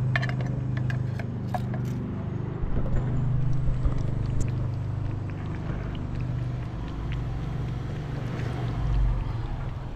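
Tin can clinking and scraping against a plastic plate in the first two seconds as wet cat food is emptied out, over a steady low hum. After that, a cat and kittens eat the wet food, with faint scattered clicks of chewing and licking.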